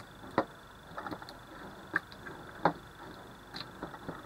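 A hand rubbing and pressing salty soy sauce marinade into a raw beef steak on a ceramic plate, giving irregular short wet taps.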